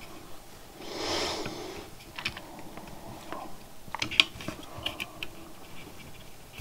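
Small clicks and taps as component leads on a circuit board are handled and bent by hand, with a short soft rush of noise about a second in and the sharpest click a little past the middle.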